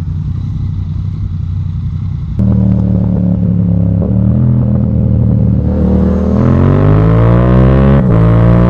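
Yamaha MT-09 three-cylinder engine through a full Akrapovic exhaust, running steadily, getting suddenly louder about two seconds in, then rising in pitch as it revs up, with short breaks in the rise near the end.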